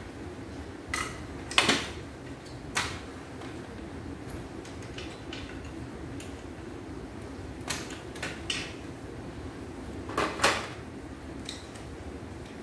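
Scattered sharp clicks and clacks of a screwdriver working on the plastic and metal frame of a portable embroidery machine as its power supply board is unscrewed and lifted out, loudest about two seconds in and about ten seconds in. A steady low hum runs underneath.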